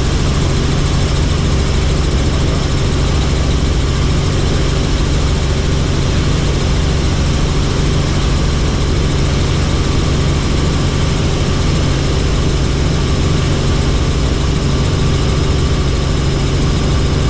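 Helicopter engine and rotor running steadily in flight: a loud, even drone with a strong low hum and a faint higher whine.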